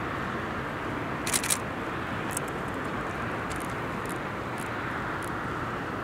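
Steady hum of road traffic. Two sharp clicks come about a second and a half in, with a few fainter clicks later.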